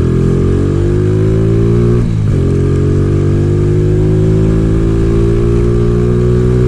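Motorcycle engine accelerating hard: the revs climb, drop sharply with a gear change about two seconds in, then climb steadily again.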